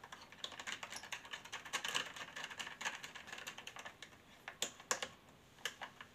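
Screwdriver turning a small terminal screw on an electrical breaker board: a quick, uneven run of small metal clicks and scrapes, with a few sharper clicks a little before five seconds in.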